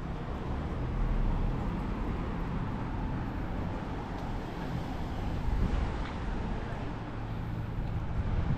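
Street traffic ambience: cars running on the road, with a steady low engine hum underneath.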